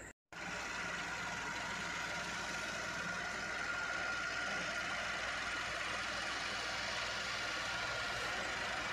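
An engine running steadily, starting abruptly just after the beginning.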